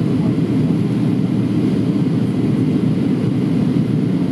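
Steady cabin noise of a Boeing 737-700 in descent: the rumble of its CFM56-7B turbofans and the rush of air over the fuselage, heard from inside the passenger cabin.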